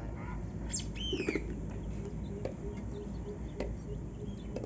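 A bird calls about a second in, a quick pair of arching chirps, over a steady low background. A couple of light clicks follow later.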